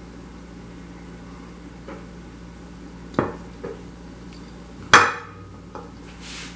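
Small hard objects knocking on a stone worktop: a few light taps and a sharp knock, then a louder clatter with a short ring about five seconds in.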